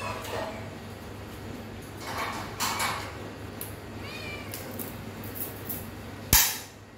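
A domestic cat meowing, with a sharp knock about six seconds in, the loudest sound, over a steady low hum.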